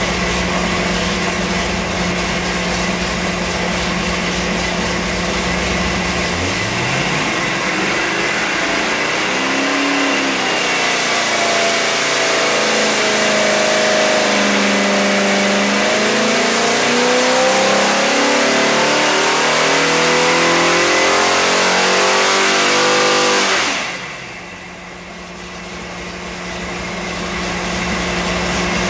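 Ford 347 stroker small-block V8 running on an engine dyno: it idles, then the throttle opens about six seconds in and the engine runs hard with its pitch climbing and shifting through a dyno pull of about seventeen seconds. The throttle then closes suddenly, the sound drops off, and the engine settles back to idle.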